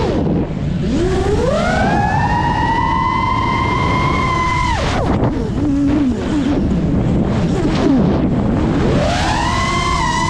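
FPV quadcopter's electric motors whining, the pitch climbing to a steady high whine, dropping sharply about five seconds in, then rising again near the end as the throttle changes.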